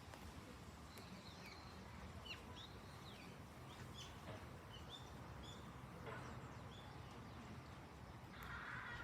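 Faint, scattered short chirps and quick sweeping calls of small songbirds over a steady low background rumble. A brief hiss comes near the end.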